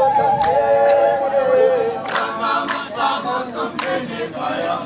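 A group of voices singing together without instruments, a welcome song, with long held notes in the first two seconds and then shorter phrases.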